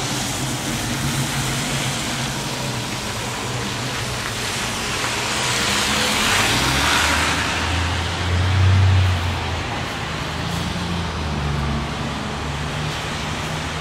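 Street traffic on a wet, slushy road: steady road noise, with a vehicle's tyres hissing past about six seconds in and a deeper engine rumble, the loudest moment, just after.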